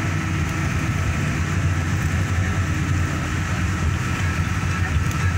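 Car driving along a road: a steady low rumble of engine and tyres, with a faint steady high whine above it.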